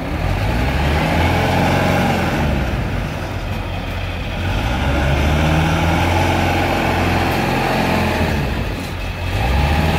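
Diesel engines of two Kubota combine harvesters running under heavy load, one towing the other out of deep mud. The note dips a few seconds in and again near the end, then picks up.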